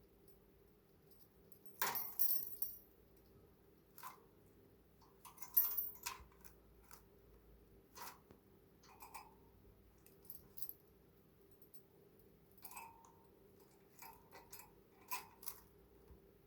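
Pet budgerigar making scattered short clicks and scratchy scrapes, about a dozen spread irregularly, the loudest cluster about two seconds in.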